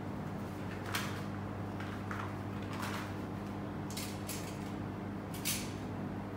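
A rubber bicycle inner tube and a tape measure being handled: about half a dozen short scrapes and rustles, the sharpest about a second in and near the end, over a steady low hum.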